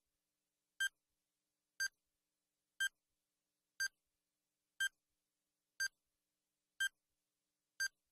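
Quiz countdown timer sound effect: a short electronic beep once a second, eight in all, with silence between.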